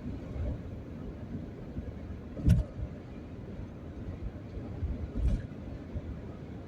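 Steady low rumble of a moving vehicle heard from inside, with a sharp knock about two and a half seconds in and a softer thump near the end.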